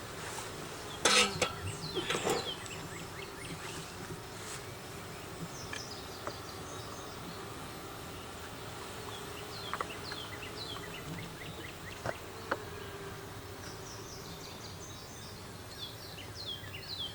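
Honey bees buzzing around the hives, a steady drone. Two brief sharp noises about one and two seconds in, and short high chirps now and then.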